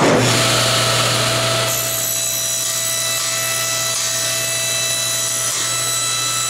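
Table saw starting suddenly and running with a steady motor hum, the blade cutting the corners off small wooden blocks. The sound is loudest for the first second and a half, then settles to an even run.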